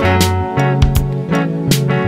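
Instrumental music: guitar over a bass line with a steady drum beat.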